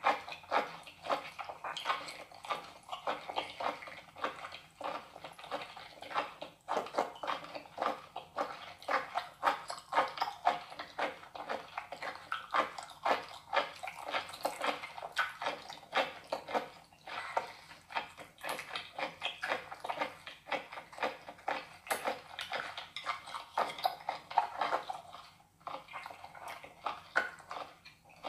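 Close-miked wet squelching and rapid sticky clicking of raw baby octopus being moved and pulled apart with chopsticks.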